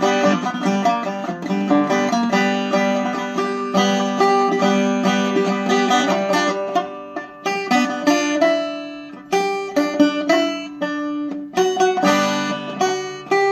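Banjo being picked: a quick run of rolling notes that thins to separate plucked notes and chords in the second half.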